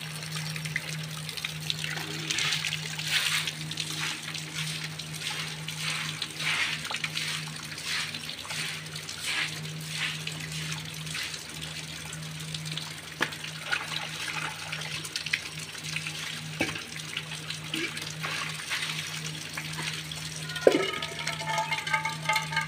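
Rainwater being scooped off a flooded dirt yard with a plastic dustpan, making repeated scraping, swishing splashes every second or two as the water is flung aside. A steady low hum runs underneath, and a short pitched call sounds near the end.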